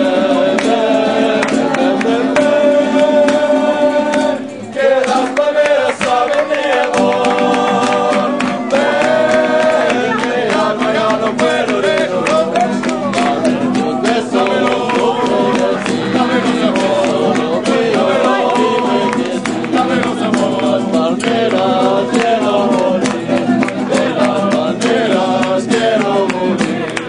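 A group of men singing a Spanish song together to a strummed acoustic guitar, with a brief break about four and a half seconds in.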